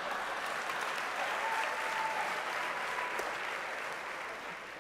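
Live theatre audience applauding and laughing after a punchline, a steady wash of clapping that tapers slightly near the end.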